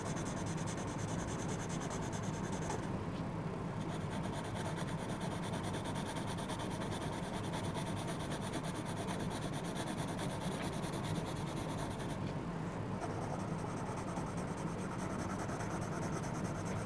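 Yellow coloured pencil rubbing on drawing-pad paper in gentle colouring strokes, over the steady hum of an electric fan.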